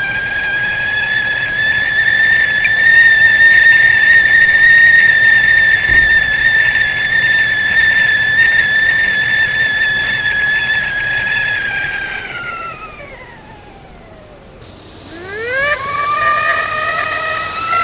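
Whistling kettle (teapot whistle) sounding a loud steady whistle over a steam hiss; about twelve seconds in its pitch slides down and fades away, then it sweeps quickly back up and whistles steadily again near the end.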